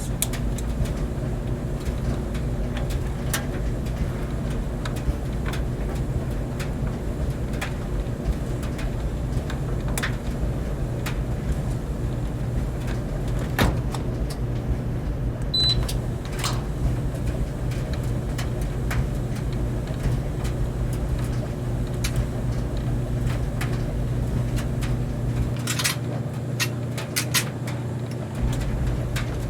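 Clothes dryer running: a steady mechanical hum with a constant low tone, with scattered light clicks and knocks over it, several close together near the end.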